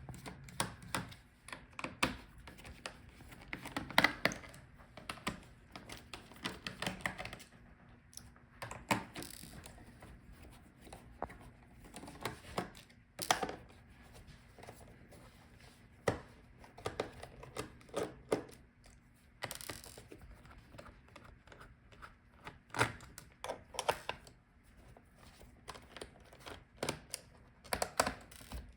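Irregular clicks and taps of a screwdriver working the bottom-case screws out of a plastic laptop case, with small parts knocking against the case.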